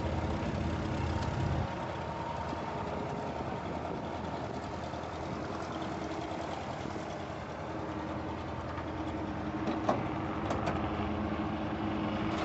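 An engine idling steadily: a constant low drone with a faint steady hum, slightly louder for the first second and a half. A few short knocks come near the end.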